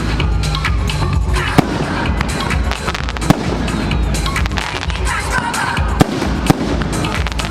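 Fireworks display: a dense, continuous run of aerial shells bursting, with sharp loud bangs every second or two over steady rumbling and crackling.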